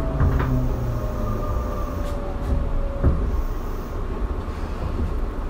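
Tobu 9050-series electric commuter train standing at the platform, its equipment giving a steady low rumble. A faint tone slowly falls in pitch over the first three seconds, with a few light clicks.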